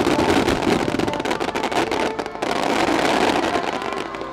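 A dense fireworks barrage: many shells bursting together in a loud, continuous crackling and popping.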